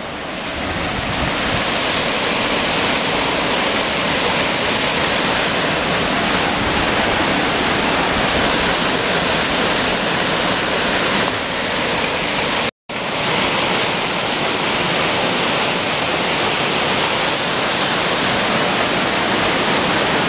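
Rushing water of a mountain waterfall and rocky stream: a steady, loud hiss that cuts out for an instant about thirteen seconds in.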